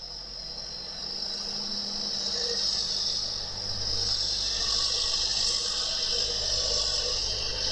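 Forestry tractor's diesel engine running low and steady as the tractor works through deep mud, under a steady high hiss.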